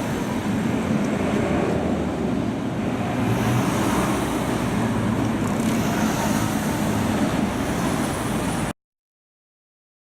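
Road traffic at a street crossing: a steady rumble of passing vehicles that cuts off suddenly about nine seconds in.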